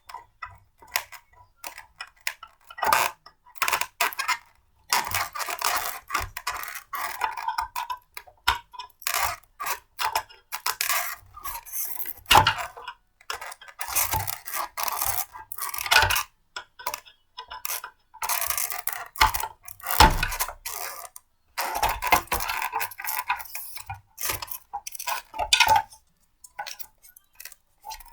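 Blender parts being handled and fitted together: irregular clatter, knocks, clicks and scrapes.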